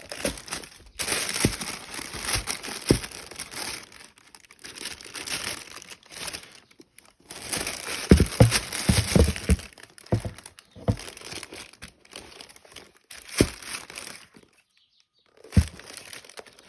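Packaging from a football boot box crinkling and rustling as it is handled, in stretches with short pauses, with several sharp knocks of the box or boots being set down.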